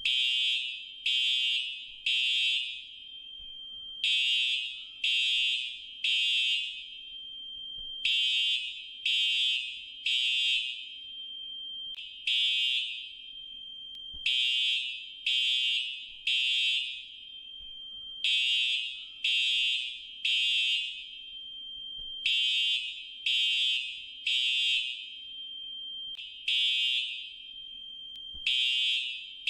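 Fire alarm sounding the temporal-three evacuation signal: a high-pitched electronic beep three times about a second apart, then a pause, with the pattern repeating every four seconds or so.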